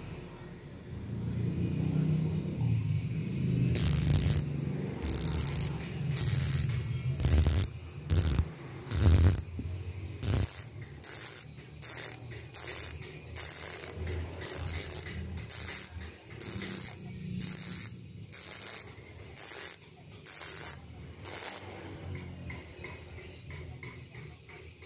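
Strummer MT009 bicycle rear hub's freehub ratchet buzzing in a series of short spurts, about one and a quarter a second, as the hub is flicked round by hand. The clicking is fine and closely spaced. Low handling rumble comes from the hands on the hub during the first several seconds.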